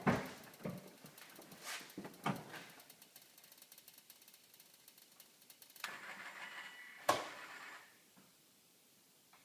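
Noise from under a 2004 Subaru Forester with the key on, whose cause the owner doesn't know: a knock, then faint rapid ticking, then about two seconds of a buzzing whine with a clunk partway through, before it stops.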